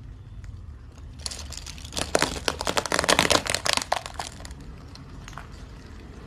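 A car tyre rolling over a stack of wax crayons, snapping and crunching them in a dense run of sharp cracks that lasts about three seconds, loudest in the middle, over a low steady rumble.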